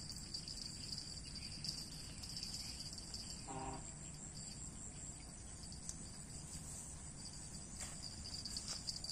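A steady high-pitched chorus of insects, with one short pitched call about three and a half seconds in.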